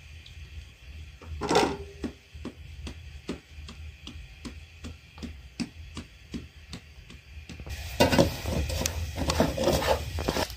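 Hands rubbing and patting soft naan dough in flour, with light ticks about three times a second. Near the end, a wood fire in a clay tandoor oven takes over, rushing and crackling more loudly.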